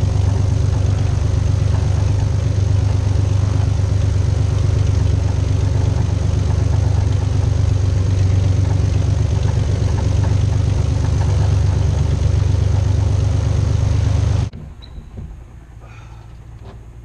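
XtremeAir XA42's Lycoming six-cylinder aero engine running steadily at idle, then cutting off abruptly near the end as the engine is shut down.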